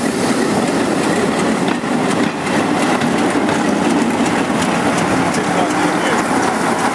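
British Rail Class 47 diesel locomotive's Sulzer 12-cylinder engine running steadily and loudly as the locomotive passes close by with its coaches.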